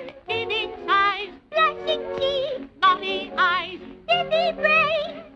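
Cartoon soundtrack music: a melody with strong vibrato, like singing, sounding in short phrases of about a second each over an orchestral accompaniment.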